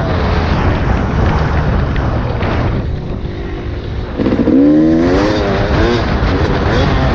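Yamaha YZ250 two-stroke dirt bike engine running hard on a motocross track, with wind rushing over the microphone. The engine drops off about three seconds in, then revs sharply back up a second later.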